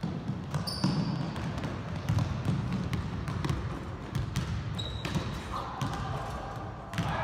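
Basketballs bouncing on a hardwood gym floor as several players dribble, a rapid, uneven patter of bounces, with a few brief high sneaker squeaks.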